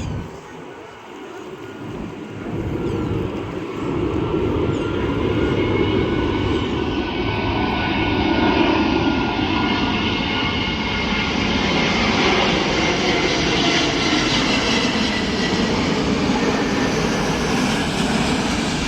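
Jet airliner passing low overhead: the engine roar builds over the first few seconds and then holds loud, with a high turbofan whine that slides slightly lower in pitch.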